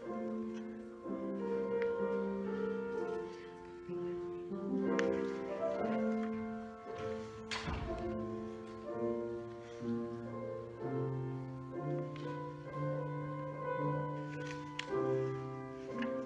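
Slow keyboard music: held chords moving from one to the next every second or two. There is a single sharp knock about halfway through.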